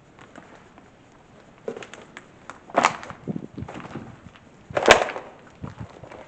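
A few sharp knocks and cracks, the two loudest about three and five seconds in, with quieter clatter between them.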